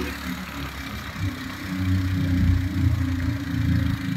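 Motorcycle engine running steadily while climbing a hill road, getting louder about two seconds in.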